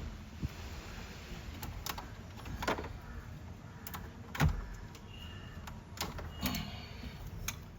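Scattered clicks and knocks of a camera cable being pulled and tucked through a car's interior trim, with one louder thump about four and a half seconds in.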